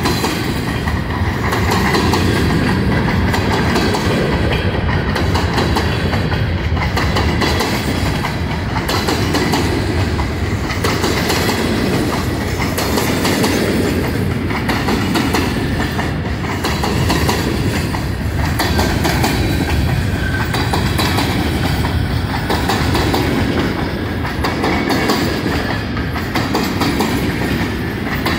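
A long freight train of empty covered-hopper grain cars rolling steadily past, with a continuous rumble and rattle and the wheels clicking over the rail joints in a repeating rhythm.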